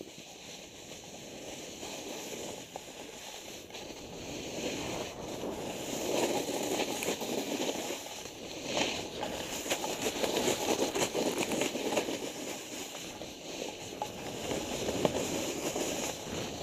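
Snowboard edges scraping and sliding over snow at speed: a rough steady hiss that grows louder about six seconds in and swells and eases with the turns.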